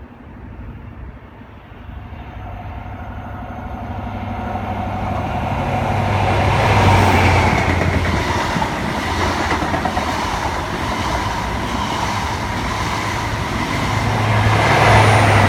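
InterCity 125 High Speed Train passing at speed. Its diesel power car grows louder on the approach and is loudest about seven seconds in. The noise holds steady as the coaches go by, then rises again near the end as the rear power car passes.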